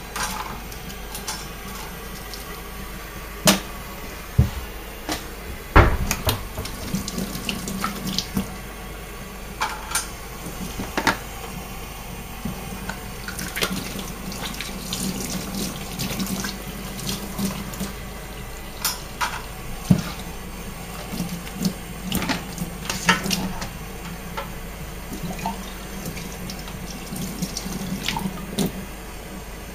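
Kitchen tap running into a stainless steel sink while plastic syringes and measuring cups are rinsed under it, with repeated sharp clicks and knocks of the plastic items being handled.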